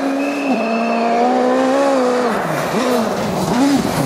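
Ford Fiesta RS WRC rally car's turbocharged four-cylinder engine running at high revs, held steady for about two seconds. Then the revs dip and climb again several times in quick swings as the car slides through a snowy corner.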